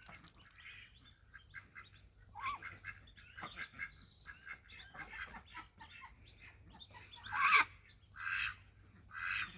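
A group of ducks calling as they walk: many short, soft calls, then three louder quacks near the end.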